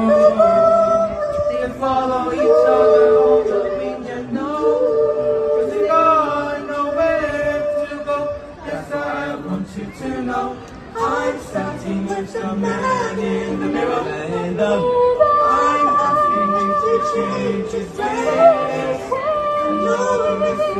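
Mixed-voice youth choir singing a cappella in harmony, mostly on held chords.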